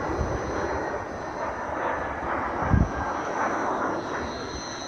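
Military jet aircraft engine noise: a steady wide rush with a faint high whine over it. A low thump stands out about three seconds in.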